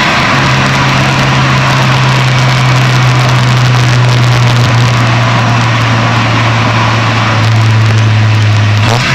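Turbocharged Proton Saga 4G15 four-cylinder engine running under steady load, heard from the engine bay. A strong hiss sits over the engine note, which eases slightly lower in pitch late on.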